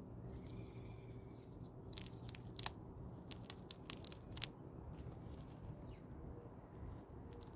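A bird call, one drawn-out note of about a second, sounds near the start. A scattering of about a dozen sharp ticks follows over roughly two and a half seconds, over a steady low background hiss.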